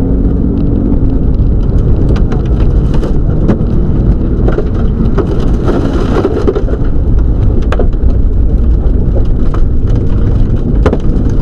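Subaru Legacy rally car heard from inside the cabin at speed on a wet gravel road: a loud, steady rumble of engine, tyres and spray, with sharp knocks of stones and mud hitting the body a few times.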